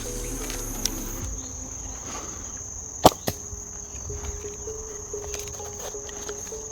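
Crickets chirping steadily. About three seconds in, a Pocket Shot slingshot bow snaps sharply on release, followed a fraction of a second later by a softer knock of the shot striking the target.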